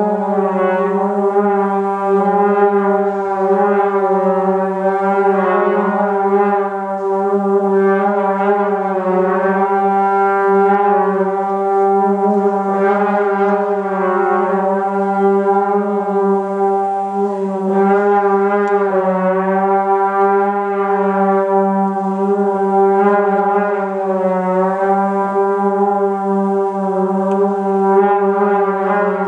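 Three trombones playing long sustained notes together, a steady low note beneath higher lines that bend slowly up and down with the slides.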